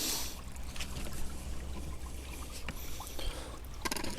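Hand loppers biting into a piece of aquarium hardscape wood, crunching and creaking, with a cluster of sharp cracks near the end as the wood gives.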